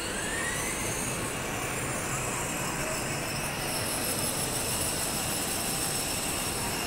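Steady background roar of a large indoor shopping mall, with faint distant voices mixed in.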